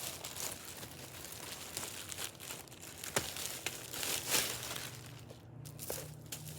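Packaging crinkling and rustling as it is handled during an unboxing, with a few sharper crackles.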